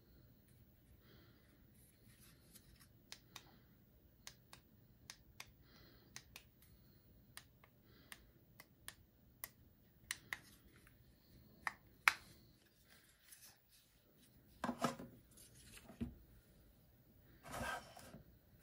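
Faint, irregular clicks of the push buttons on a clip-on LED book light being pressed, a dozen or more spread over several seconds. Near the end come a few louder rubbing and knocking handling sounds as the light and its cardboard packaging are moved on the table.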